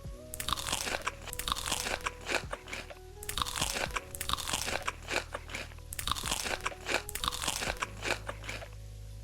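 Close-up crunchy chewing of crisp food, bite after bite in repeated clusters of crackling crunches, stopping near the end.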